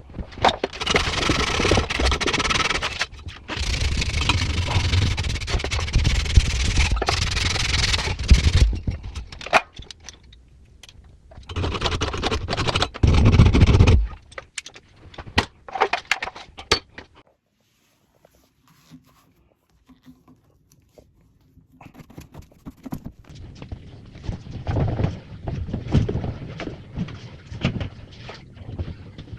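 Scraping and handling noises from plumbing work: two long rough stretches, then scattered clicks, a pause about two thirds of the way through, and more scraping near the end.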